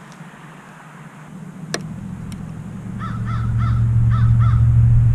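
A crow caws five times in quick succession, from about three seconds in. Under it a low engine rumble grows steadily louder from about a second in and becomes the loudest sound. There is a single sharp click just before the calls.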